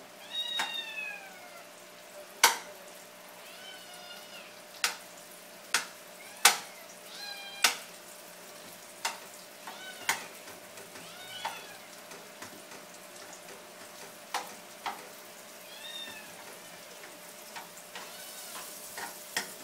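Sliced onions frying in butter in a pan, with about a dozen sharp clacks of the spatula against the pan. A cat meows over and over, short rising-and-falling meows every second or two.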